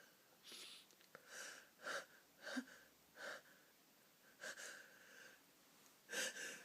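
A woman's quiet, breathy gasping in-breaths, about seven short ones in a row, the catching breaths of a nose tickle building toward a sneeze that does not come.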